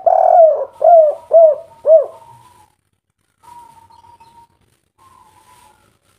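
Spotted dove (tekukur) of the 'kuk 3' song type cooing: a quick run of about four loud, rounded coo notes in the first two seconds, then a few fainter, steadier whistled notes later on.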